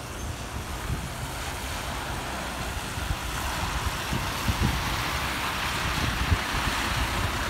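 Kenworth truck on a wet road, the hiss of its tyres on the water slowly growing louder as it comes nearer, over a low rumble, with wind buffeting the microphone.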